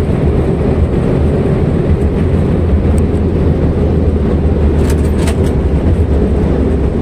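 Airbus A330 cockpit on the landing rollout: a loud, steady low rumble of the engines and the airliner rolling down the runway, with a few faint clicks about five seconds in.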